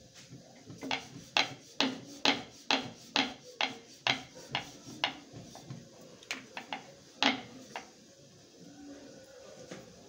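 Quick sharp knocks, about two a second for some four seconds, then a few scattered ones with one loud knock past the middle: roti dough being worked with a rolling pin on a wooden rolling board.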